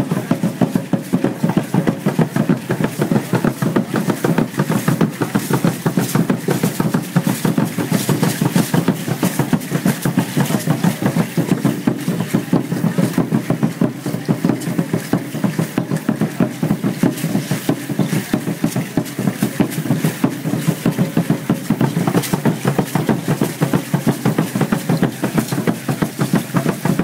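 Aztec dance drumming: a fast, steady drumbeat with the dancers' rattles shaking in time with it.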